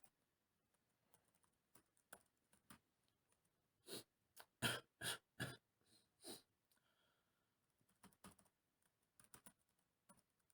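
Typing on a computer keyboard: scattered soft key clicks, with a quicker run of louder strokes about halfway through.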